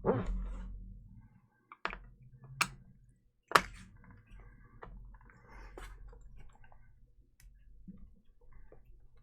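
Scattered clicks and knocks of a screwdriver and hands working a screw out of the underside of a Toshiba laptop. The loudest knock comes about three and a half seconds in.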